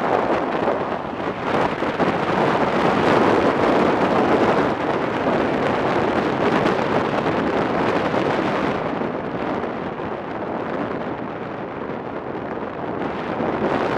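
Wind rushing over the camera microphone on a motorcycle riding at highway speed, a steady loud roar that eases somewhat about nine seconds in.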